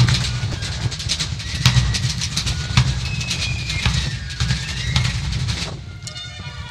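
Fife and drum band playing a march: bass and snare drums beating steadily under shrill fife notes, with wind buffeting the microphone. About six seconds in the wind rumble drops away and the fife tune comes through more clearly.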